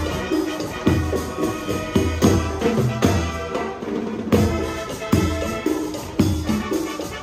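A Latin dance band playing, with bass and drums beating out a steady rhythm and hand percussion on top; the higher parts drop away briefly about halfway through.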